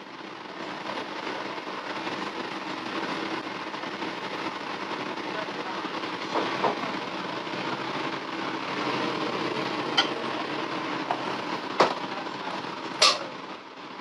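Beef brisket, potato and tomato stew simmering under a glass lid in a frying pan on a gas burner: a steady bubbling hiss, with three sharp clicks in the second half.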